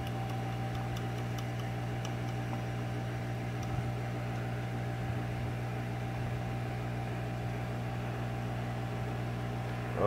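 A steady low machine hum, even and unchanging, with a few faint clicks of small parts being handled.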